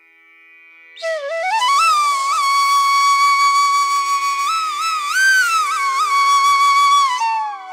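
Instrumental background music: a flute-like melody over a steady drone. The melody enters about a second in, glides up to a long held note with small ornaments, and falls away near the end.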